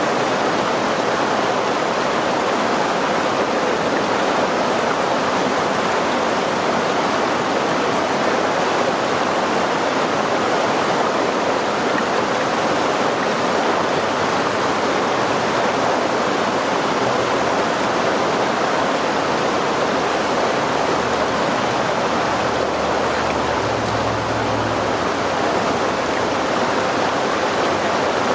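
A river stream rushing steadily.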